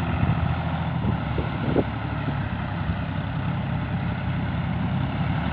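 Several diesel farm tractor engines running steadily together.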